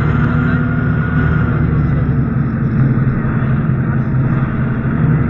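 Interior sound of a MAN A11 (NG 272) articulated diesel city bus under way: a steady, loud engine drone with a thin constant whine over it.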